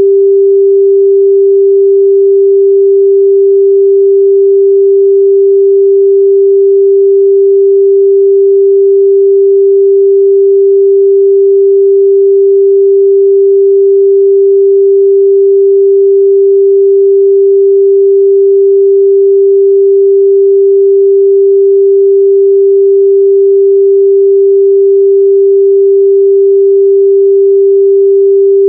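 A steady, loud 394 Hz sine-wave test tone, one pure unchanging pitch with no other sound.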